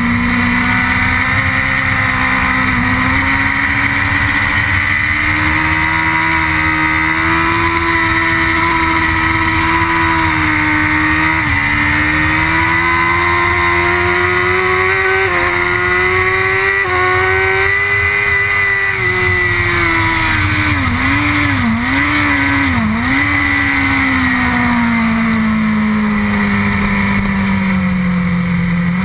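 Onboard sound of a BMW S1000RR's inline-four engine at racing revs, with wind rush. The engine note climbs and falls through the corners, with three quick gear changes a little past the middle and a long fall in pitch near the end before it picks up again.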